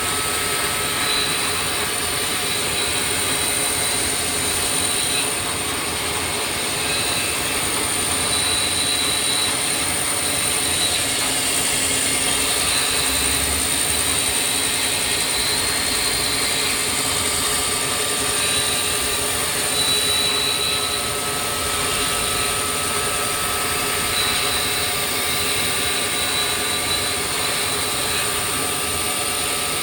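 CNC machine running steadily in a machine shop, a constant mechanical noise with fixed high-pitched whines and a high tone that cuts in and out.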